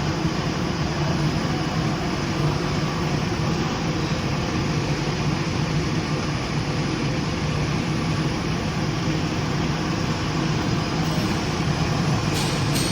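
Spiral filter tube welding machine running: a steady mechanical drone with a low hum, and a brief hiss near the end.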